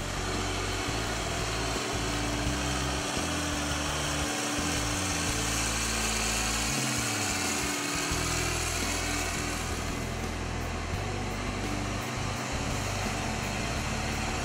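Case IH 2188 combine's six-cylinder diesel engine running steadily as the combine drives slowly, a constant engine hum with a hiss over it.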